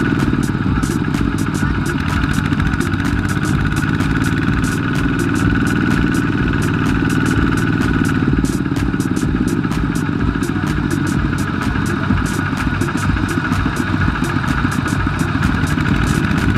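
Two-wheel walking tractor's single-cylinder diesel engine running steadily with a fast, even chugging beat, working to pull its loaded trailer out of the mud.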